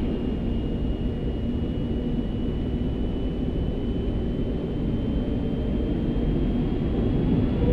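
Airbus A380's Rolls-Royce Trent 900 engines spooling up for the takeoff roll, heard from inside the cockpit. A steady low rumble carries a thin high whine that climbs slowly. Further rising tones come in near the end as it grows louder.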